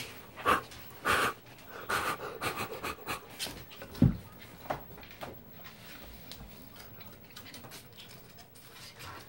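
Raccoon breathing hard and huffing in short bursts right at the microphone over the first few seconds, with one loud thump about four seconds in. After that come quieter scattered ticks.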